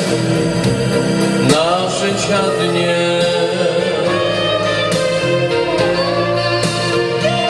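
Christian gospel song with guitar accompaniment and a singing voice.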